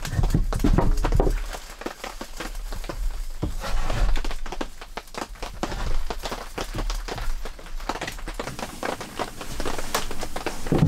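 Split firewood logs knocking against each other as they are stacked by hand, followed by scattered lighter wooden clicks and taps and one louder knock at the end.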